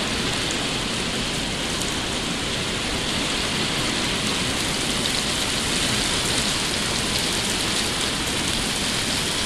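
Heavy thunderstorm downpour: dense rain pouring down in a steady, even hiss.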